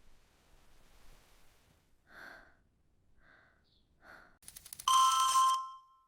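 Three short, soft breathy sounds, then near the end an alarm clock goes off: a quick rattle of clicks, then about a second of loud, bright ringing tones that fade out.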